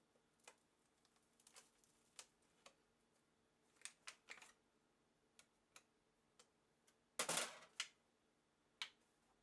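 Scattered small clicks and light knocks from tools and metal parts being handled while a Fluke 732A voltage reference is taken apart, with one louder, short scraping rattle about seven seconds in.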